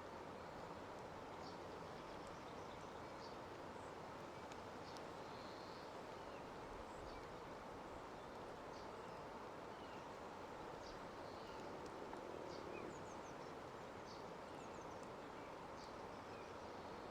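Steady, faint hiss of falling rain, with brief high bird chirps dotted through it every second or so, some falling in pitch.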